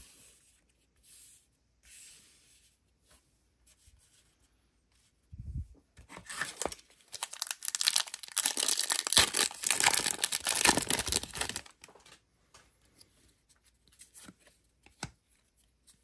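Trading card pack wrapper being torn open and crinkled: a low thump about five seconds in, then several seconds of loud crackling rip and crinkle. A few soft clicks of cards being handled follow near the end.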